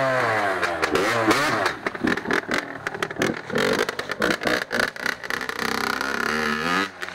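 Yamaha YZ85 two-stroke single-cylinder engine being revved, its pitch climbing and falling again and again, choppy and uneven for a few seconds in the middle. It cuts off suddenly near the end.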